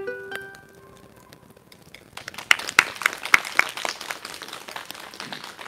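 A final ukulele chord rings and dies away, then a small group starts clapping about two seconds in and keeps applauding.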